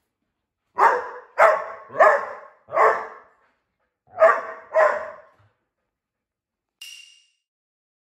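Australian Shepherd barking six times: four quick barks, a short pause, then two more, loud enough to read 80 dB on a sound-level meter app. A brief faint high-pitched sound follows near the end.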